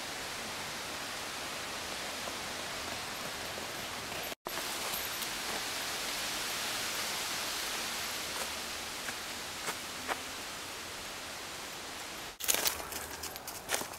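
A steady, even hiss with no distinct events, broken by a brief dropout about four seconds in. Near the end it gives way to a run of irregular crackling rustles and clicks.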